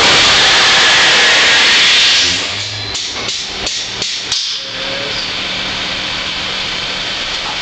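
Aircraft carrier's hydraulic arresting gear engine taking an arrestment: a loud rushing hiss for about two seconds as the landing aircraft pulls out the cable and drives the crosshead. A quick run of metallic knocks and clanks follows, then a steady machinery hum.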